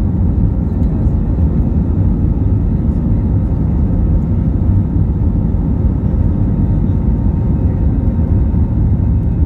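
Cabin noise of an Airbus A320-family airliner taxiing, heard from a seat over the wing: a steady low rumble of the jet engines and rolling wheels, with a faint steady whine above it.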